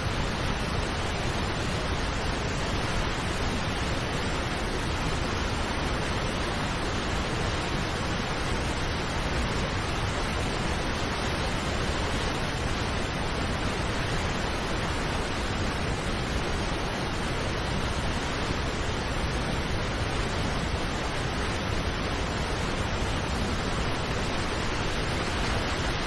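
Large river waterfall in heavy flow: a steady, unbroken rush of water pouring over rock ledges, even in level throughout.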